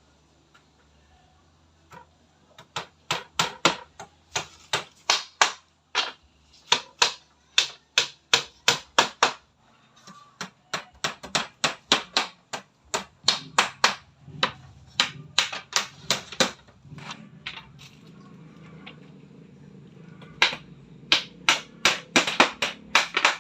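Hammer blows on wood in quick runs of sharp strikes, about two to three a second, with short pauses between runs. A low hum comes in about halfway through.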